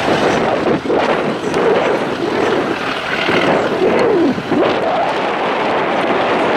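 Ex-Greater Anglia Class 317 electric unit running past on the scrap train, a steady rushing rumble with a few wavering squeals from the wheels. Wind buffets the microphone.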